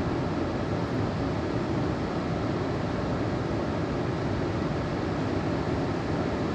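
Lynn Creek's water rushing steadily through the canyon, a constant even rush with no change in level.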